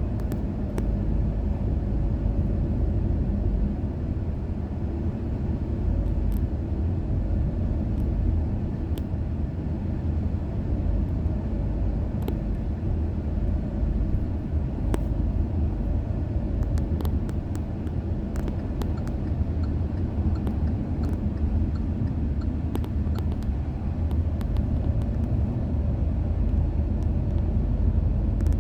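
Steady low rumble of a car driving, heard inside the closed cabin with the air conditioning running on recirculation, with faint scattered ticks.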